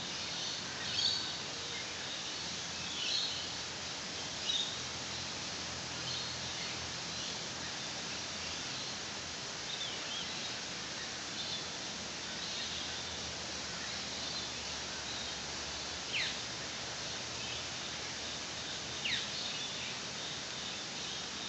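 Forest ambience under a steady hiss, with wild birds calling: a few short chirps in the first several seconds, then two sharp downward-sliding whistles later on.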